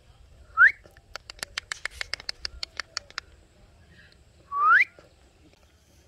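Indian ringneck parakeet whistling: a short rising whistle, then a quick run of about fifteen sharp clicks, about seven a second, then a second, louder rising whistle.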